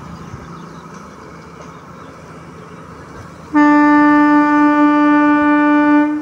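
Locomotive horn sounding one long steady blast that starts abruptly about three and a half seconds in and stops near the end, over a low background rumble.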